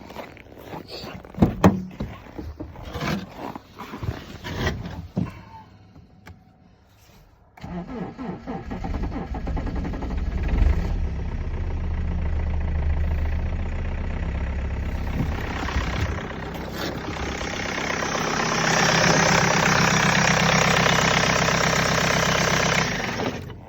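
A BMW engine being started: after a few clicks and knocks and a short quiet pause, the engine sound starts suddenly about seven and a half seconds in. It runs on with an even, rhythmic pulse, grows louder for the last five seconds or so, then cuts off abruptly.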